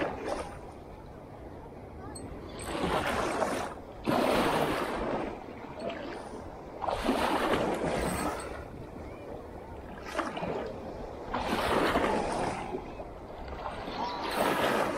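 Waves washing in against a rock groyne, one surge of water every three to four seconds.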